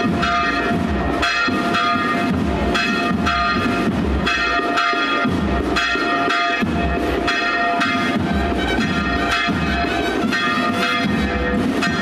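Church bells ringing in a continuous peal, with strikes following one another at an uneven pace. A steady bell hum carries on underneath between the strikes.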